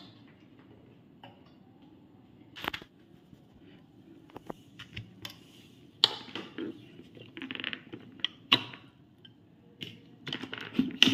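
Scattered plastic clicks, knocks and scrapes from handling the Preethi Zodiac mixer grinder's juicer jar as its lid is opened after juicing.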